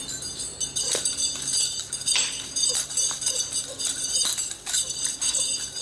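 Metal nunchaku swung and struck through a fast combat sequence: the chain and handles clink and clack in quick, irregular strokes.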